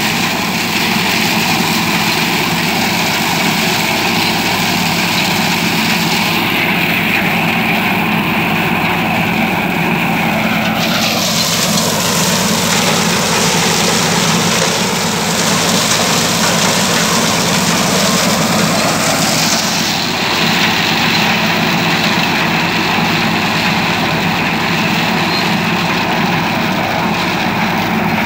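Tractor engine running steadily under load while pulling a PTO-driven Happy Seeder, its rotor working through dry straw stubble. The sound turns brighter and hissier for several seconds in the middle.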